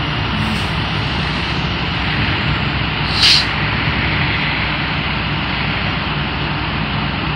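Fire engines running steadily, a constant engine drone and rush. A short, sharp hiss about three seconds in.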